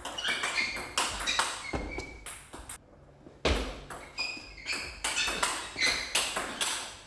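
Table tennis rally: rapid sharp clicks of the ball off rackets and table, many with a short ringing ping, with a brief pause about three seconds in before play picks up again.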